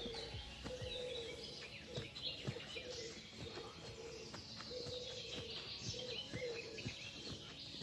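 Outdoor birdsong: several small birds chirping and singing high, with a lower, repeated cooing phrase of a pigeon several times through.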